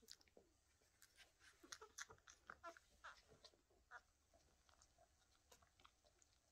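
Newborn whippet puppies suckling at their mother: faint quick wet smacks and clicks, busiest in the first half, with a few brief squeaks.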